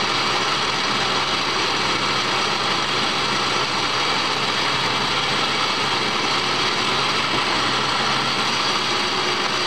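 Sheldon EXL5628 tool room engine lathe running under power, its spindle and gear train turning: a steady mechanical whir over a low hum, with no change in speed.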